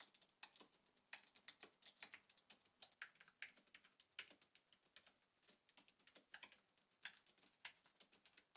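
Typing on Apple Magic Keyboards: a fast, uneven run of soft scissor-switch key clicks, first on the 2021 iMac's colour-matched keyboard and then on the older Magic Keyboard. The keys sound exactly the same on both.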